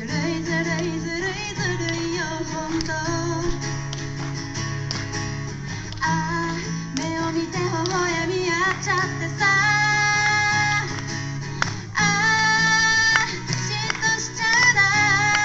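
Background pop song: a woman singing over guitar strumming with a steady bass line.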